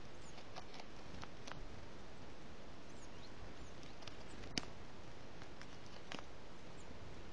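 Northern goshawk feeding at a carcass: about six short, sharp clicks and ticks of beak and tearing on the meat, the loudest a little past halfway, over a steady faint hiss.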